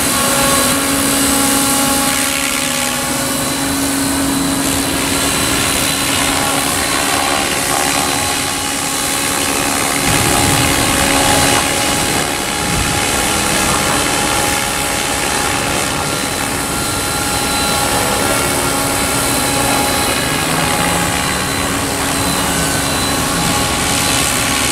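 Electric radio-controlled model helicopter in flight: a steady whine from its electric motor over the whir of the spinning rotor blades.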